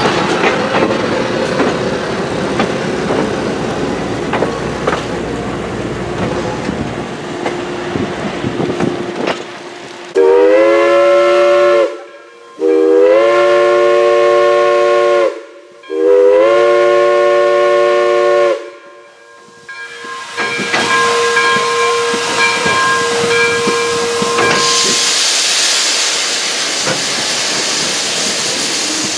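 Railcars rolling along the track, then a steam locomotive's chime whistle blows three long blasts, each sliding up into its chord at the start. A steady hiss of escaping steam follows near the end.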